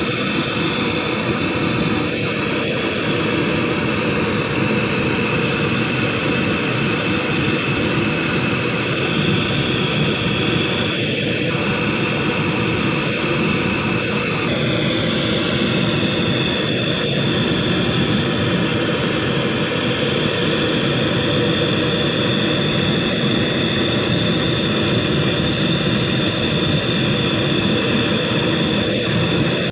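Handheld gas blowtorch burning steadily with a loud rushing hiss as it heats a steel ball to red hot. Its tone shifts about halfway through, and it cuts off sharply at the end.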